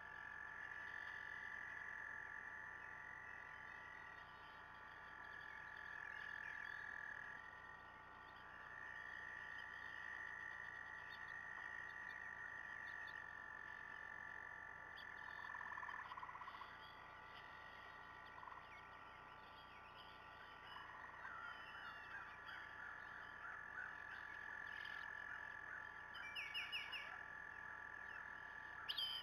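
Faint chorus of frogs trilling: long overlapping trills, each held for several seconds. A few short bird chirps come in near the end.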